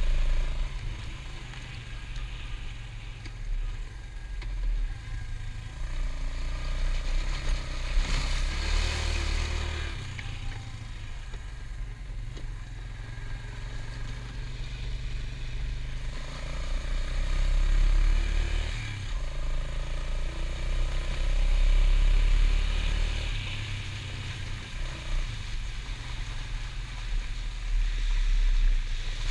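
ATV engine running on a trail ride, its level rising and falling as the throttle changes, with a brief burst of hiss about a third of the way in.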